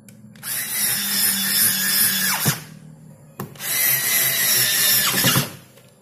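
Cordless electric screwdriver driving screws into a washing machine's plastic back cover in two runs of about two seconds each. The motor's pitch falls away as each run stops.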